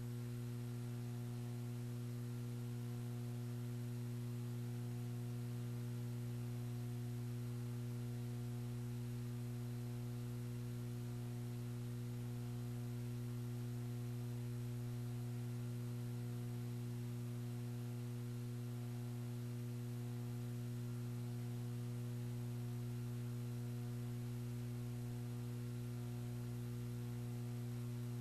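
Steady electrical mains hum with a faint hiss behind it and no programme sound. The hum holds unchanged throughout.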